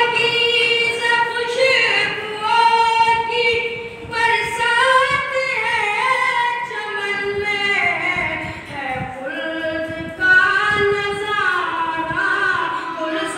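A boy's high voice chanting a noha, a Shia mourning lament, into a microphone without accompaniment, in long held notes that slide up and down.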